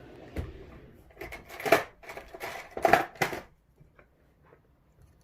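Metal tools scraping and clicking against a stiff steel circlip as it is prised off the back of a dimple euro cylinder lock: a run of metallic scrapes and clinks that stops about three and a half seconds in.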